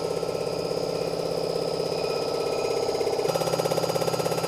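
Engine-block surfacing machine running, its large rotating cutter head milling across the cast-iron deck of a Renault Mégane 3 RS block to true it flat. A steady machine tone with a rapid, even pulsing; it grows a little louder just past three seconds in.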